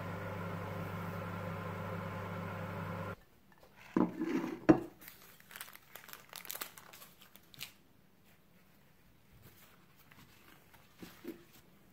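Microwave oven running with a steady hum that cuts off about three seconds in. Then come knocks and clatter with one sharp knock, followed by light crinkling, rustling and clinking as things are handled.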